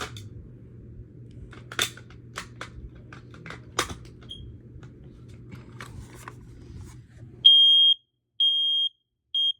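Plastic clicks and knocks as a battery is fitted into a Kidde i9050 smoke alarm, with a brief faint chirp partway through. Near the end the alarm sounds its loud, high-pitched test tone in the three-beep evacuation pattern: three half-second beeps with short gaps.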